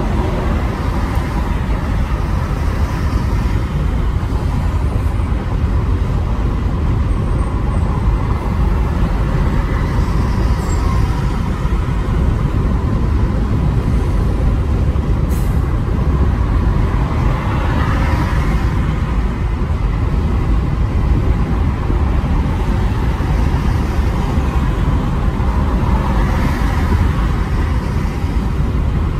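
Steady road and engine drone heard from inside a car cruising on a freeway, with a deep rumble underneath. The noise swells twice, around 18 and 27 seconds in, and there is one short tick about 15 seconds in.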